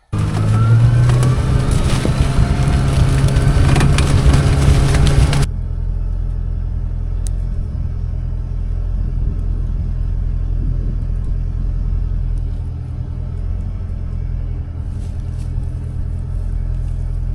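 A vehicle engine running steadily with a low drone. For about the first five seconds it is louder, with a harsh hiss over it. Then it drops to a quieter, even hum.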